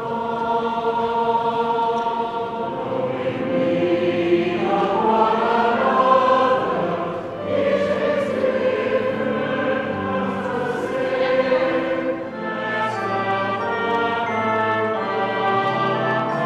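Mixed choir of men's and women's voices singing in sustained parts. Brass instruments, trumpet and tuba among them, come in near the end.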